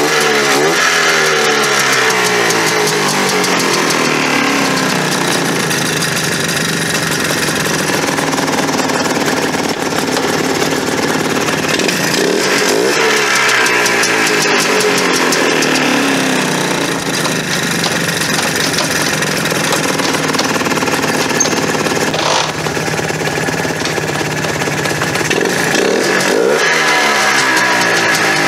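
Polaris Trail Boss 250's two-stroke engine running, revved up and let back down about three times: at the start, around the middle and near the end, with steady running in between.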